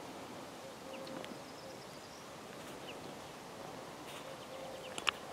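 Faint meadow ambience with a few short, high bird chirps and a faint low tone that comes and goes. A single sharp click comes near the end.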